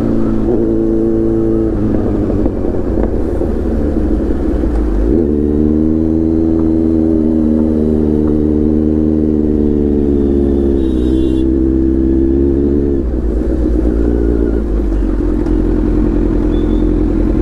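Kawasaki Z900's inline-four engine running through a full titanium Arrow exhaust while the bike is ridden. Its note holds steady, then steps and rises and falls several times with the throttle.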